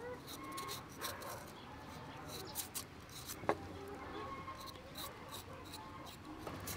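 Small kitchen knife paring the skin off a cauliflower stem held in the hand: a run of short, irregular scraping cuts, with one sharp click about three and a half seconds in.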